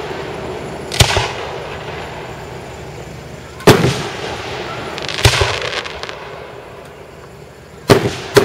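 Aerial firework shells bursting with loud booms, five in all, spaced one to three seconds apart, the last two in quick succession near the end; each bang is followed by a fading echo.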